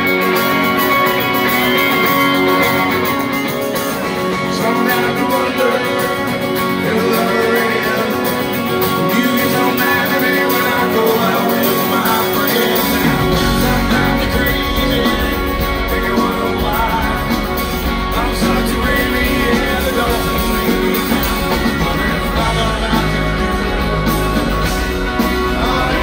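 Live rock band playing through a concert PA, with guitars and singing. About halfway through, the sound changes abruptly as a heavy, deep bass line comes in under the band.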